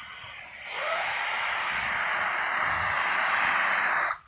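Narrow-gauge steam locomotive letting off steam: a steady, loud hiss that starts about a second in and cuts off suddenly near the end.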